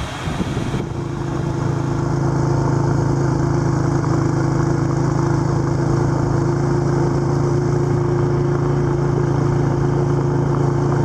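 Small engine of a handlebar-steered off-road vehicle, running at a steady speed while riding, heard from a camera on the handlebars. It comes in about a second in and holds an even pitch with no revving.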